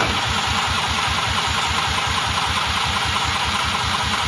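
Blown-up Polaris 400cc two-stroke engine being cranked over steadily for a compression test, with an even beat of about seven pulses a second; it has very little compression left, about 38 PSI.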